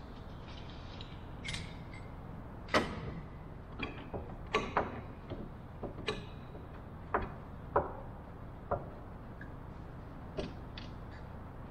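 A small hand clamp being fitted and tightened on a wooden rudder frame: about ten separate sharp clicks and knocks at irregular intervals, the loudest about three seconds in.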